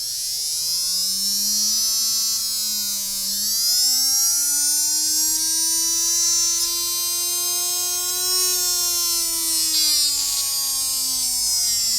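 Small 3-volt brushed DC motor, stripped of its casing and magnets, running on an external hand-held magnet with a whine and brush hiss. The whine rises in pitch from about 3 s, holds, then falls near the end. The motor speeds up as the magnet is brought closer to the rotor and slows as it is drawn away.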